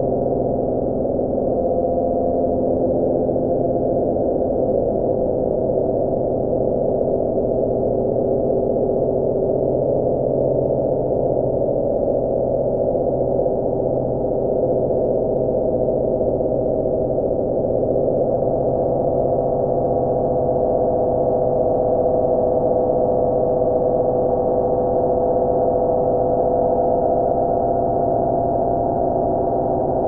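Home-built analog synthesizers, run through a Boss GT-8 effects unit, playing a loud, steady drone of many layered held tones. Some tones drop out and others slowly swell as the knobs are turned.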